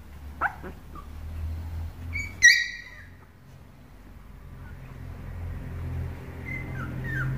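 Shiba Inu puppies squeaking and whimpering. There is a short squeak near the start, a loud high-pitched squeal about two and a half seconds in, and a few short falling squeaks near the end.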